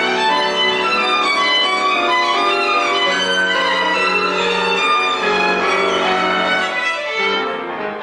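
Violin music playing a melody of long held notes. It grows softer near the end.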